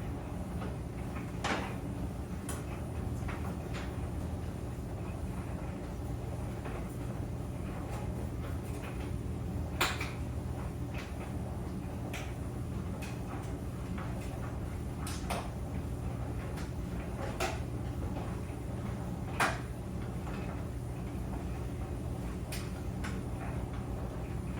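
Clothes dryer running: a steady low hum from the motor and turning drum, with a few irregular sharp knocks and clicks.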